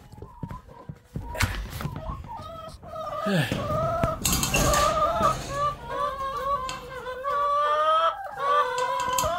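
A flock of chickens clucking and calling, many voices overlapping, starting about a second in.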